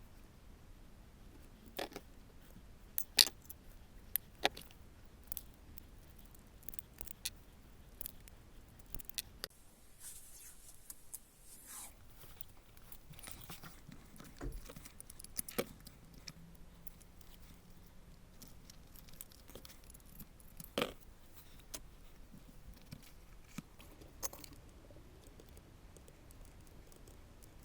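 Scattered small clicks, taps and light rattles of small parts and tools being handled on a workbench, with a brief rustling scrape about ten seconds in.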